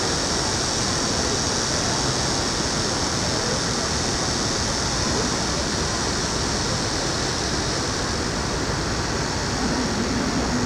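Steady outdoor city-plaza ambience: a constant, even wash of noise with faint voices of passers-by.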